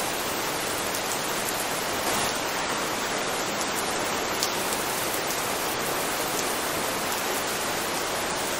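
Steady rain, an even hiss with a few faint scattered drop ticks.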